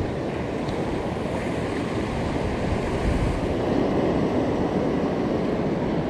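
Steady rush of wind on the microphone mixed with the wash of surf breaking on a reef, a constant low rumbling noise with no distinct events.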